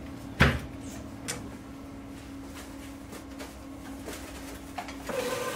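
A large knife chopping through a cabbage onto a plastic cutting board, with one sharp knock about half a second in and a lighter one a second later, over a steady low hum. Near the end a commercial vegetable cutter's electric motor starts and runs with a steady whine.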